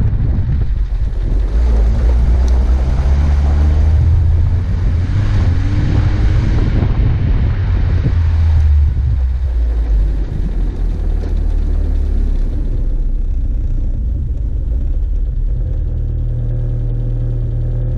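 An off-road 4x4's engine pulling along a snowy track, its pitch rising and falling with the throttle over a low rumble. About ten seconds in it eases off, and it settles to a steady idle as the vehicle comes to a stop.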